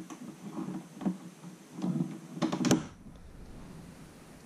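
Plastic snap-together circuit pieces with metal snap studs being handled and set onto a clear plastic base grid: a few sharp clicks and clacks in the first three seconds, the sharpest near the middle.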